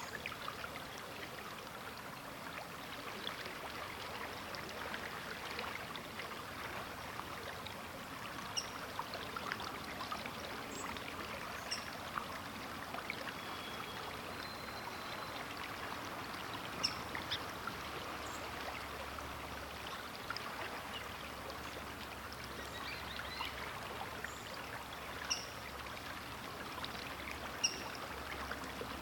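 River water flowing: a steady rush with small splashes and plinks scattered through it.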